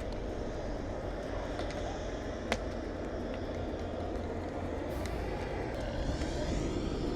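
Steady low outdoor rumble on the camera microphone, with one sharp click about two and a half seconds in and a few fainter ticks.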